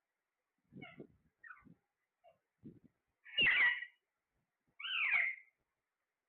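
A pet parrot giving two loud calls about a second and a half apart, each with a bending pitch, after a few soft short sounds.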